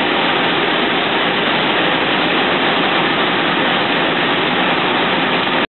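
Steady, even hiss and rumble inside a moving city bus: its engine and running noise. It cuts off suddenly near the end.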